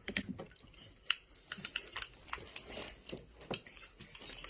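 Irregular small clicks and taps, several a second, from objects being handled.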